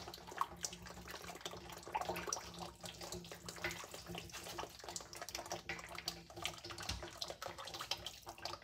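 Motor oil pouring from the opened drain of a racecar's dry sump oil tank, spattering in several streams over the trailing arm and splashing into a funnel below: a continuous, irregular pattering splash, over a faint steady low hum.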